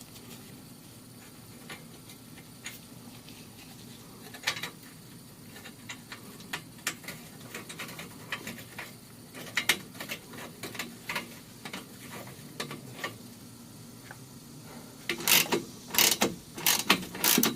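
Hand tools working exhaust clamp hardware: scattered light metallic clicks and taps, then a quick run of louder clicks near the end as a nut is run on snug.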